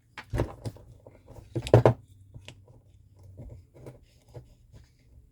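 Small clicks and taps of a key lock cylinder and its tiny wafers and spacers being handled and fitted together, with a louder cluster of clicks about half a second in and another just under two seconds in.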